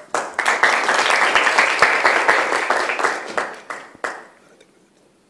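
A small audience clapping. It starts abruptly, holds loud for about three seconds, then dies away.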